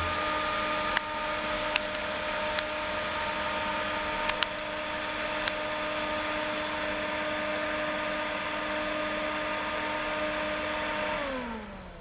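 ERA 4S ET axial bathroom exhaust fan running steadily on its run-on timer after the wall switch is off, with a hum and a rush of air and a few sharp clicks in the first half. About eleven seconds in the timer cuts the power and the motor winds down, its pitch falling away.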